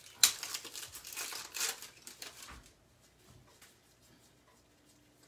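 Wrapper of a hockey card pack being torn open and crinkled, with a sharp crackle just after the start, for about the first two and a half seconds. After that there are only faint rustles and ticks as the cards are handled.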